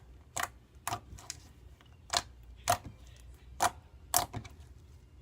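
Glossy slime being squeezed and folded in the hands, giving about seven sharp, irregularly spaced clicks as air pockets pop.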